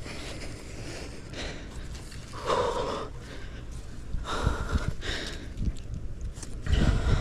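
A person breathing hard while climbing a tree, with three loud, breathy exhalations about two seconds apart, over a low rumble of wind on the microphone.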